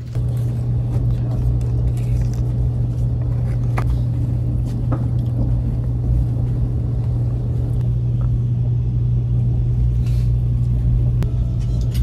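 Steady low rumble of a moving vehicle, with a constant low hum and a few faint clicks.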